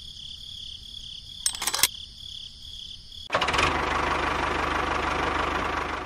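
A brief rattle of sharp clicks about one and a half seconds in. About halfway through, a steady mechanical running sound like a small motor starts suddenly and keeps going, over a constant high chirping of crickets.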